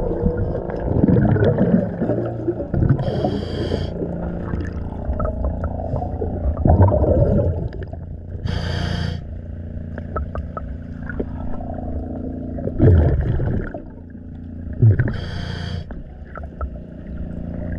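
Underwater sound of hull cleaning: a diver's scuba regulator sends out a hissing rush of exhaled bubbles about every four to six seconds, between scraping and scrubbing against the boat's bottom, over a steady low hum.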